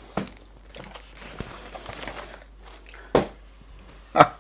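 Cardboard box and plastic-wrapped rolls of beer mats being handled: rustling, with two sharp knocks, one near the start and one about three seconds in, as rolls are set down on the counter. A louder short sound comes near the end.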